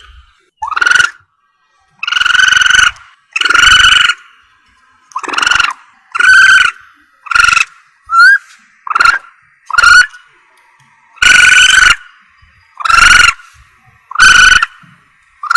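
Civet lure call: a dozen or so loud, harsh squalling calls, each under a second long, repeated at irregular intervals of one to two seconds, with one short thin rising chirp about halfway through.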